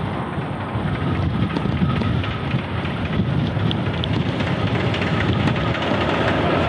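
Victorian Railways Y class 0-6-0 steam locomotive Y112 working hard up a steep 1 in 52 grade with a train of carriages, getting louder as it approaches.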